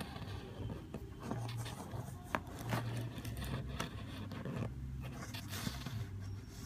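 Handling noises from a homemade vending machine being worked by hand: irregular scraping and rustling with a few sharp clicks, the clearest about two and a half seconds in, over a low steady hum.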